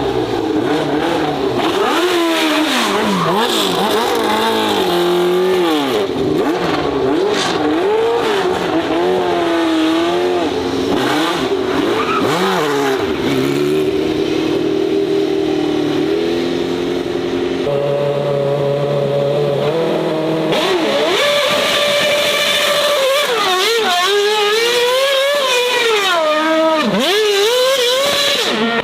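Racing car engines revving hard and accelerating, the pitch repeatedly rising and falling as the throttle is blipped and worked through the gears. A steadier stretch of held engine notes in the middle gives way to a different engine about two-thirds through, which swings sharply up and down again.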